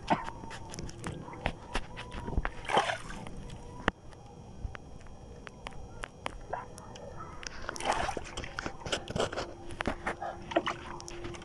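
Shimano Ocea Jigger F Custom conventional jigging reel being cranked under load during a long fight with a big fish: irregular clicks and knocks from the reel and its handling, with water sloshing against the boat now and then.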